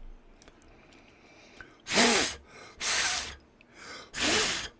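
Three hard puffs of breath blown by mouth through small parts of a titanium mechanical pencil's lead mechanism, to clear out graphite dust after ultrasonic cleaning.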